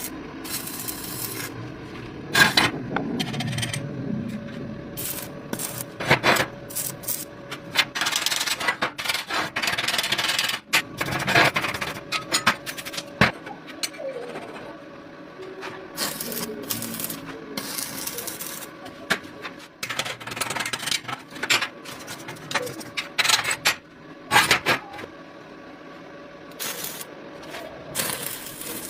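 Metal pieces being handled and worked: irregular clinks and knocks mixed with scraping and rubbing, over a faint steady hum.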